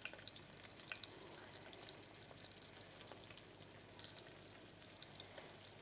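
Faint sizzling and crackling of a rib-eye steak searing in hot oil in a pan.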